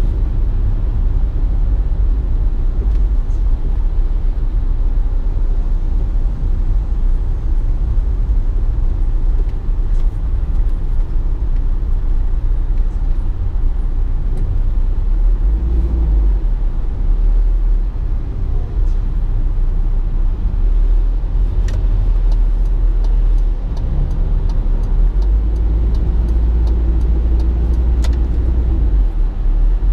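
A car on the move: a steady, heavy low rumble of engine and road noise, with a few light clicks in the second half.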